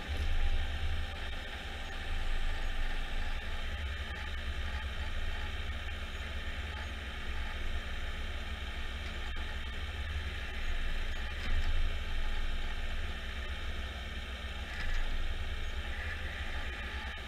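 Jarcrac Dual tracked forwarder's engine and loader-crane hydraulics running steadily while the crane loads pulpwood logs, swelling in loudness a few times.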